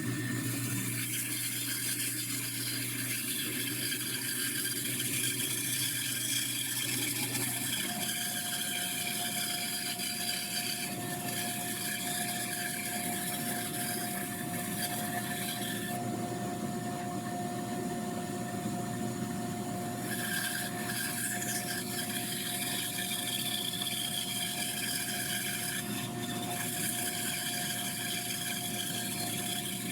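Bandsaw running with its blade cutting slowly and steadily through wood, sawing out the inside of a bandsaw-box drawer. A thin steady whine joins about eight seconds in.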